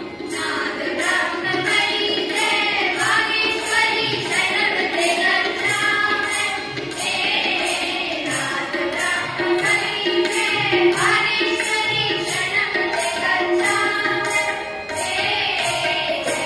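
A group of young voices singing a devotional song together over music. A jingling percussion beat runs about twice a second, with a drum underneath.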